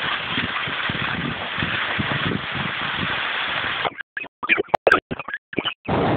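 Steady rushing of wind over a phone microphone, with the hiss of skis sliding on snow, while skiing downhill. About four seconds in, the sound breaks up for about two seconds into choppy cut-outs and crackles before the steady rush returns.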